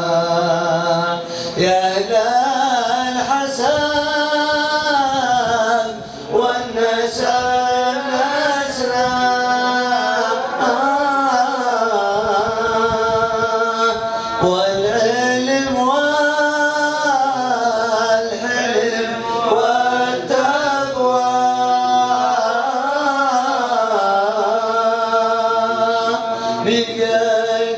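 A man's solo voice sings an unaccompanied Islamic nasheed, drawing out long ornamented melodic lines that glide up and down with no words breaking them. He takes a brief breath about six seconds in.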